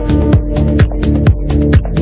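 Electronic dance music with a steady beat, about two kick drums a second.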